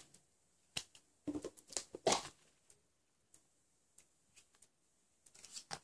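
A few brief, quiet rustles and taps of things being handled, bunched about a second or two in and again near the end, with quiet stretches between.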